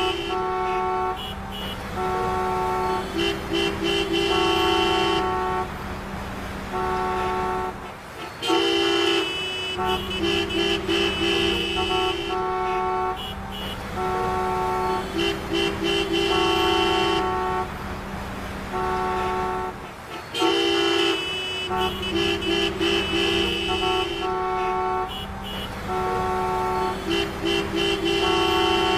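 Traffic jam: many car horns honking in short toots and longer blasts of several different pitches over a steady low hum of traffic. The same run of honks repeats about every twelve seconds, like a looped recording.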